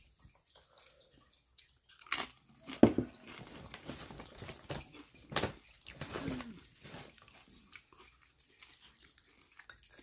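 A person chewing a crunchy mouthful while tasting salsa, with a few sharp crunches about two, three and five and a half seconds in.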